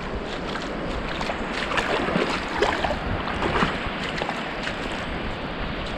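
Steady wind noise on the microphone over the wash of distant surf on an open beach, with a few faint short sounds between two and four seconds in.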